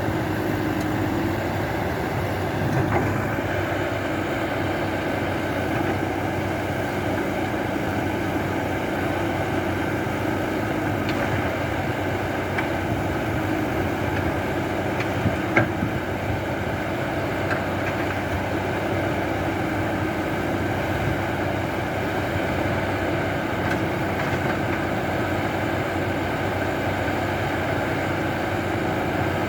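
An engine running steadily at an even pitch, with one sharp knock a little past halfway.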